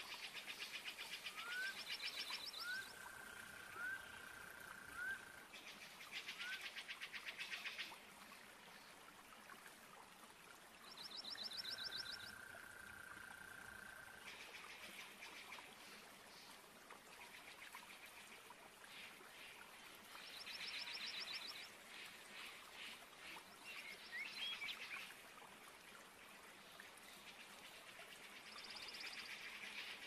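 Faint Amazon rainforest ambience: bouts of rapid pulsed trilling calls that start and stop every few seconds, a few short rising chirps, and a held whistling note heard twice, over a soft steady hiss.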